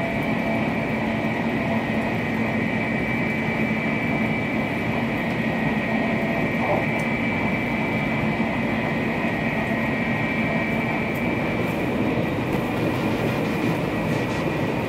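THSR 700T high-speed train heard from inside the passenger cabin while running at speed: a steady rumble with a steady high whine on top.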